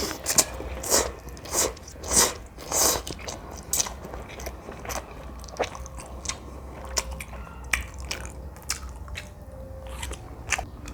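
Close-miked eating of jjajangmyeon noodles. About five loud wet noodle sounds come in the first three seconds, then chewing with scattered sharp smacking clicks.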